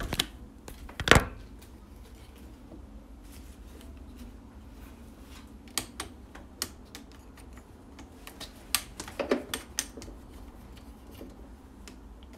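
A phone camera being handled and repositioned: a loud knock about a second in, then scattered clicks and taps.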